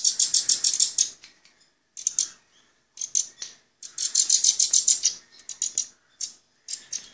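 Common nightingale fledglings giving begging calls as they are hand-fed: rapid high-pitched chirps in bursts of about a second, several bursts broken by short pauses.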